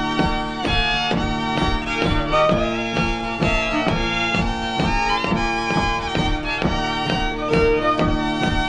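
Old-time Native and Métis fiddle tune played on solo fiddle with a quick, steady beat.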